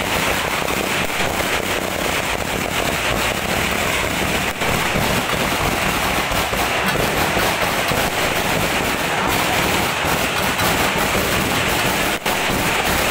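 Firecrackers going off in a continuous rapid crackle, a long run of small bangs without a break.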